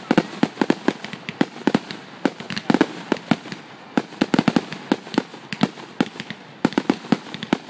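Aerial fireworks exploding: a rapid, irregular string of sharp bangs and crackles, several a second, with brief lulls.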